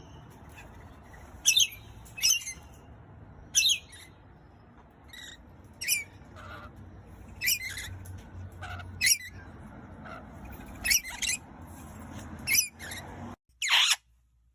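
Pet parrot giving short, sharp chirps and squawks, about a dozen spaced a second or so apart, with a louder call near the end.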